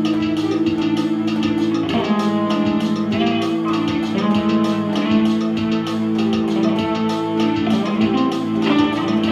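Electric guitar played through a small practice amp together with a Casio electronic keyboard: held chords under a steady strummed rhythm.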